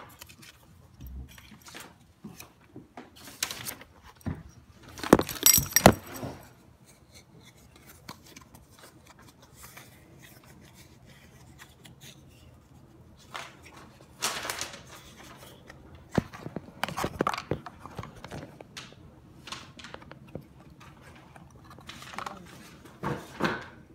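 Handling and rummaging noises: scattered rustles, clicks and clinks, with the loudest cluster about five to six seconds in and more bunches of them later on.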